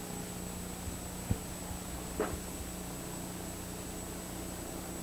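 Quiet room tone: a steady low hum with hiss and a thin high whine, broken by a faint click about a second in and another brief faint sound just after two seconds.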